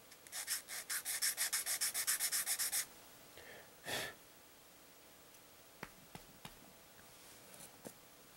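Rapid back-and-forth sanding of a plastic model-kit part, about seven quick scratchy strokes a second for a couple of seconds, the usual way of smoothing down the nub marks left by the sprue cutters. A short breathy rush follows about four seconds in, then a few light plastic clicks near the end.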